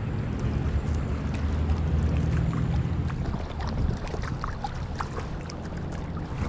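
Steady low rumble of flowing river water around a wading angler, with light splashes from about halfway in as a hooked whitefish is drawn toward the landing net.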